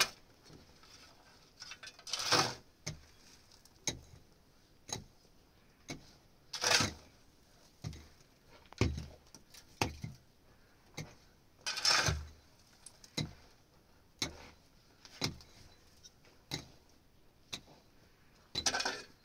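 Steel shovel blade striking and scraping into dry, stony earth, stroke after stroke at about one a second, with a few longer scrapes as it scoops a load.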